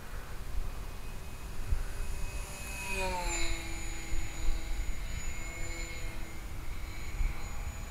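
Scorpion brushless electric motor and propeller of a small RC delta-wing plane flying overhead: a steady whine that drops in pitch about three seconds in, then holds level. The owner says it doesn't sound good and suspects a bad motor bearing.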